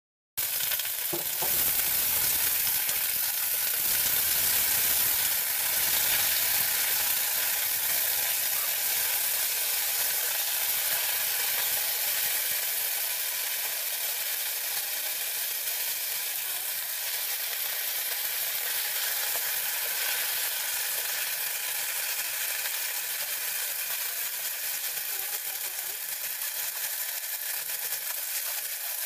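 Choy sum greens sizzling in hot oil in a nonstick pan as they stir-fry and wilt. It is a steady hiss that starts suddenly and eases slightly over the second half.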